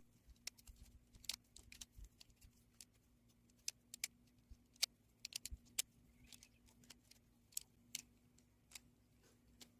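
Faint, irregular clicks and clacks of a coreless magnetic Rubik's cube's plastic pieces snapping against each other as the cube is twisted and scrambled, with a faint steady hum beneath.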